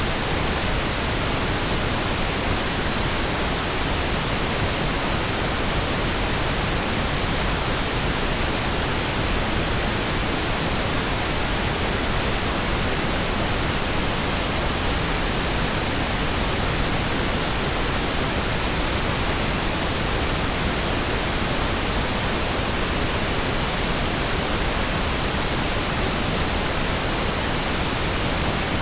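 Steady, unchanging pink noise: a smooth, even hiss with no breaks or changes.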